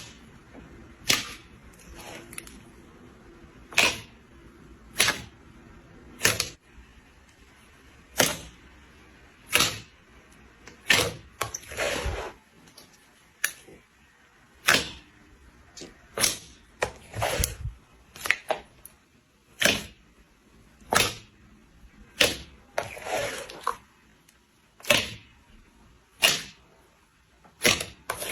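Slime being pressed and stretched by hand, giving a sharp pop or click about every second or so as air pockets burst. Twice, a longer squishing sound runs for about a second.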